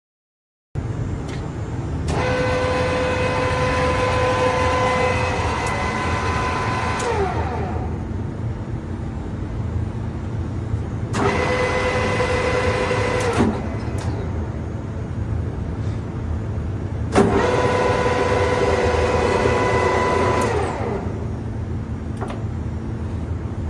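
Keiyo-Seki KG-1000 gap bed lathe running under power: a steady motor hum, with a steady whine from the geared headstock and spindle coming in three times, each starting with a click, lasting a few seconds, then sliding down in pitch as it winds down.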